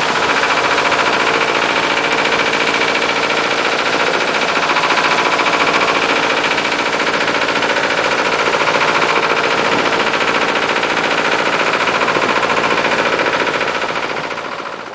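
Small motorboat's engine running steadily at speed, a fast, even beat, with the rush of water along the hull. Fades out near the end.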